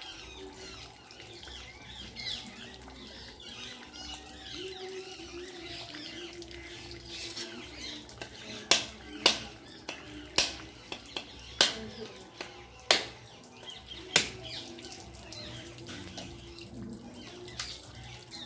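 Birds chirping and squawking, with a run of about six sharp cracks roughly a second apart midway through.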